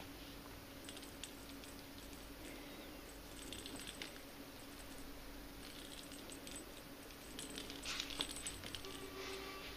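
Light clicks and rattling taps of a small toy ball bouncing and rolling on a tile floor as a cat bats at it, in scattered clusters, the busiest about eight seconds in.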